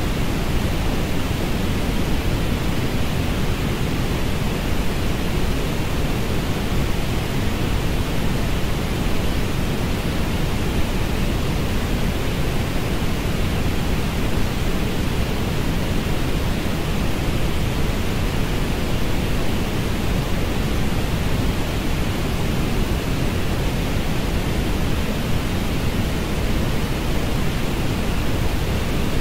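Synthetic orange noise: a steady, unchanging hiss with most of its weight in the low end, thinning out in the highest treble.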